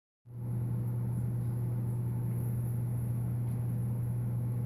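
A steady low mechanical hum with a light hiss behind it, unchanging.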